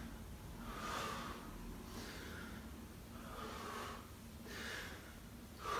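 A man breathing hard after high knees, one breath roughly every second, in and out, while twisting side to side in a star-twist exercise.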